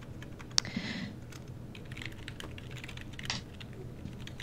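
Typing on a computer keyboard: irregular light key clicks, with one sharper click about half a second in.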